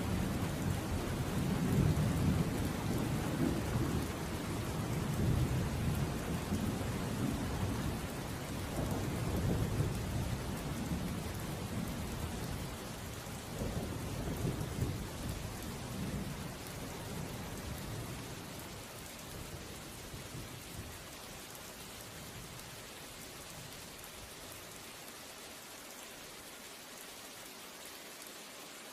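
Steady rain with a low, rolling rumble of thunder. The thunder gradually dies away through the second half, leaving only the even hiss of rain.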